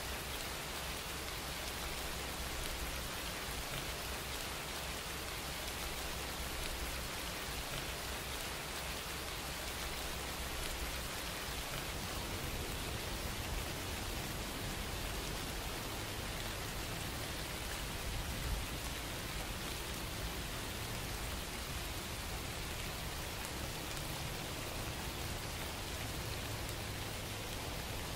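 Steady, even rain-like noise: a constant hiss with no distinct events.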